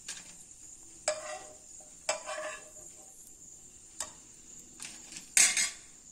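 Stainless steel slotted spoon knocking and scraping against a nonstick frying pan as fried cashews are scooped out of ghee: about half a dozen separate clinks, some with a short ring, the loudest near the end.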